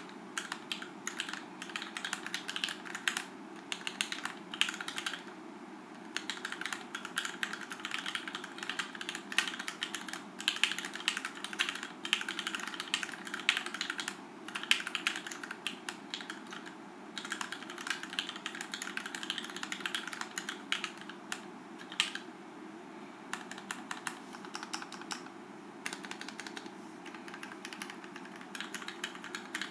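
Typing on a 60% mechanical keyboard in an acrylic Tofu60 case with lubed and filmed Gateron Ink Black linear switches: a fast, irregular run of key clacks with a few short pauses.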